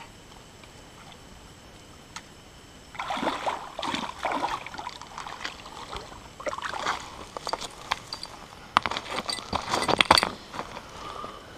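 A hooked fish splashing in the shallows as it is reeled to the bank, starting about three seconds in. The splashes come in uneven bursts, and the loudest, sharpest ones come near the end as the fish is grabbed at the water's edge.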